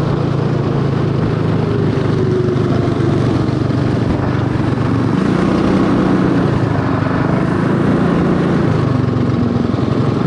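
Cycle kart's small engine running steadily under way, heard from on board, its pitch drifting up and down a little with throttle.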